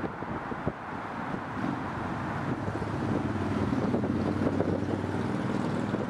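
Road traffic passing close by: a vehicle's engine hum grows louder from about a second and a half in, over wind on the microphone.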